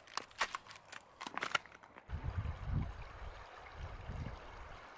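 Footsteps crunching on frozen, ice-crusted river stones, a quick series of steps in the first two seconds. Then a shallow river flows steadily over its stones, with low rumbling gusts of wind on the microphone.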